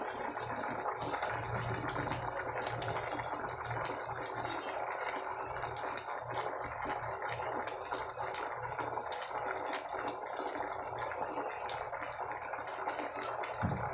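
Pot of paksiw vinegar broth boiling on a stove, a steady hiss of bubbling with faint clicks and knocks as eggplant slices are laid into the pot.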